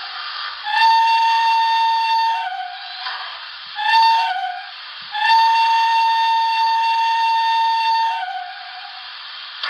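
The onboard sound decoder of an HO-scale BLI Paragon 2 PRR H10 model plays a Pennsylvania Railroad 'banshee' steam whistle through the model's small speaker. It gives a long blast, a short blast and another long blast, and each sags lower in pitch as it shuts off, over a steady steam hiss.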